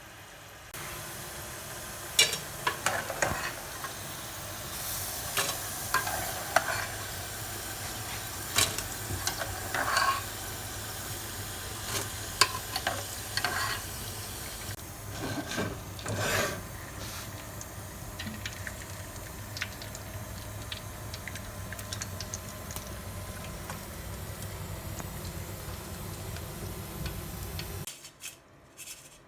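Food sizzling steadily in a frying pan while a utensil stirs and scrapes against the pan at intervals, with sharp clicks in the first half. The sizzle cuts off abruptly near the end.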